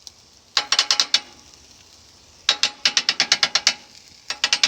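Metal spatulas rapidly clacking and chopping on a steel flat-top griddle, in three quick rhythmic bursts of about ten ringing clicks a second.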